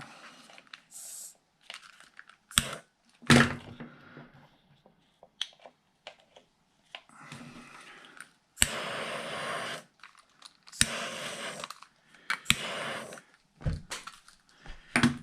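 Hands working on battery wires and plastic connectors: sharp clicks and knocks with several short crinkling, rustling bursts in between.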